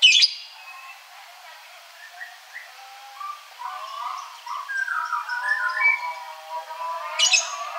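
Ashy drongo (srigunting abu) calling: a sharp, loud call at the start and another near the end, with a run of short, varied notes in between.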